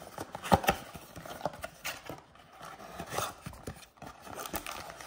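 Cardboard blaster box of trading cards being opened by hand: scattered clicks, taps and scrapes of cardboard as the top flap is pulled up and the box is handled, the sharpest click about half a second in.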